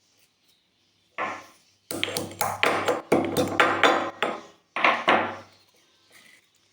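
A pestle pounding black peppercorns in a small mortar to crush them coarsely. It comes as quick repeated strikes in three bursts, starting about a second in, with the longest run in the middle.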